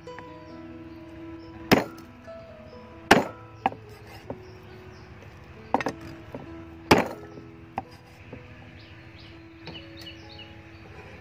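Cleaver chopping through raw pork ribs on a wooden cutting board: four loud chops at uneven intervals and a couple of lighter knocks, stopping after about eight seconds. Background music plays throughout.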